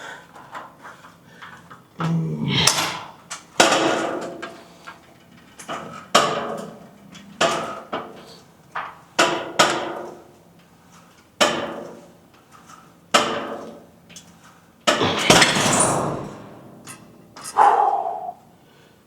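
Gym weights clanking: a dozen or so sharp metallic knocks with short ringing, at irregular intervals, and a longer clattering noise about fifteen seconds in.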